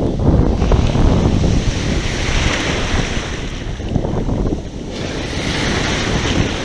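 Sea waves washing in. The surf hiss swells twice, from about two seconds in and again from about five. Heavy wind buffets the microphone throughout.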